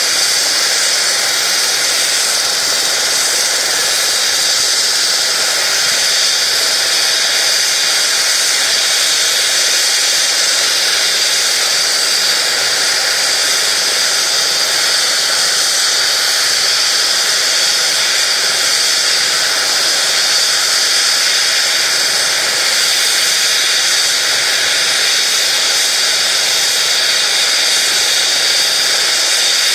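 Turbine engines of a Eurocopter EC135 air-ambulance helicopter running on the ground, a steady high-pitched whine and hiss that neither rises nor falls.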